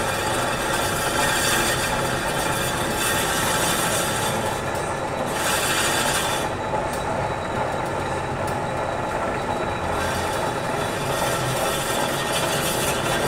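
Metal lathe running as its tool turns down a steel shaft, a steady mix of machine running and cutting hiss. The higher hiss drops away about five seconds in and comes back about ten seconds in.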